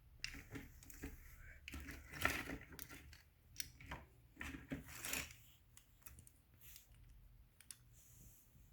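Handling noise as the ends of two garage door opener belts and their metal end connectors are held up and compared: irregular clicks and rustling, busiest for the first five seconds or so, then a few fainter clicks.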